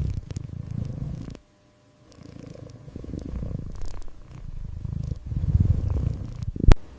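Kitten purring in a steady low pulsing rumble, broken by a brief silence about a second and a half in, with one sharp click near the end.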